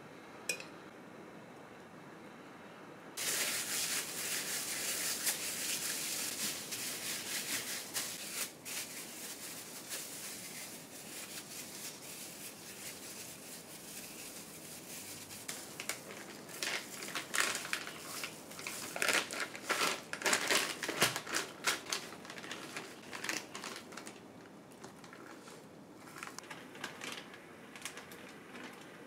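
Thin plastic bag crinkling and rustling as chicken breast is kneaded inside it with salt koji and the bag's mouth is twisted and tied. Dense crinkling starts about three seconds in, then comes as irregular sharp crackles.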